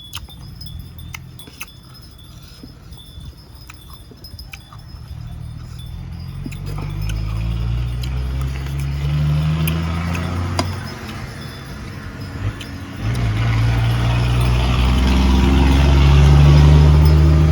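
A motor vehicle's engine running close by, growing louder and rising in pitch about a third of the way in, easing briefly, then coming back louder near the end. A few light clicks are heard early on.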